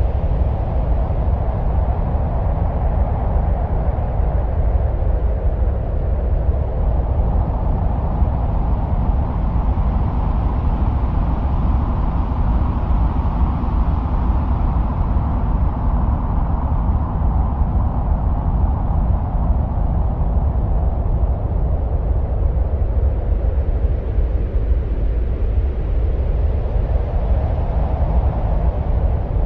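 Continuous wind-like noise presented as the sound of Mars: a steady deep rumble, with a rushing whoosh above it that slowly swells and ebbs.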